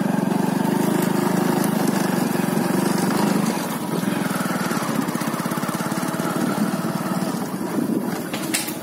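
A small engine running steadily with a rapid pulsing beat, a little softer from about three and a half seconds in.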